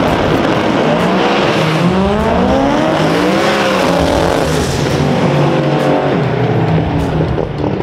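Drag cars making a hard quarter-mile pass, one of them a twin-turbo big-block 1956 Ford Fairlane. The engine notes climb in repeated rising sweeps as the cars accelerate down the strip.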